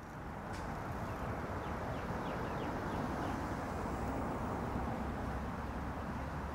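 Outdoor city ambience: a steady hum of distant traffic that fades in at the start, with a quick series of small bird chirps about two to three seconds in.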